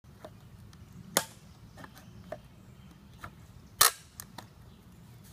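Scattered sharp clicks and knocks over a low background rumble, the two loudest about a second in and a little before four seconds in.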